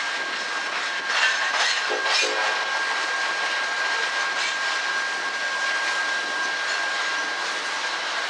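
Coal train's hopper cars rolling past, their steel wheels on the rail making a steady rolling noise. A thin steady high tone runs through it, with a few brief louder bursts between about one and two seconds in.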